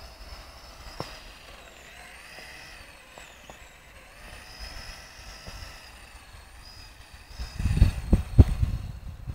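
Electric motor of a Kyosho Blizzard radio-controlled snowcat whining, its pitch rising and falling as the throttle changes. About seven and a half seconds in, loud low rumbling and thumps come in.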